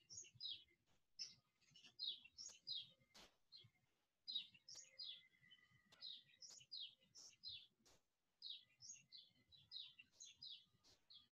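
Faint chirping of small birds: short falling chirps in quick runs, with a couple of soft clicks.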